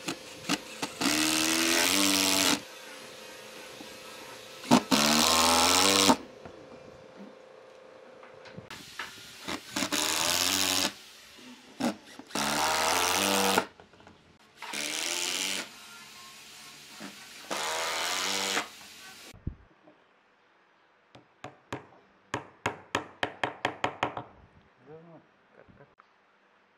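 Makita 18-volt cordless drill driving long screws into pine, in six bursts of a second or so, the motor speeding up and slowing down as each screw goes in. Near the end comes a quick run of sharp taps as a wooden dowel plug is tapped into a screw hole.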